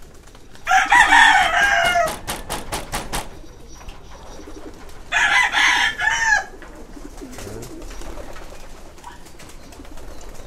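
Domestic pigeons cooing softly throughout, with two loud calls, each a little over a second long, about a second and five seconds in. Right after the first call comes a quick run of sharp claps.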